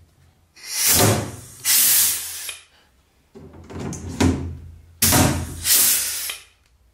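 Pneumatic pop rivet gun setting two pop rivets through an aluminium panel, each rivet a pair of loud air hisses; the second rivet follows about three seconds after the first.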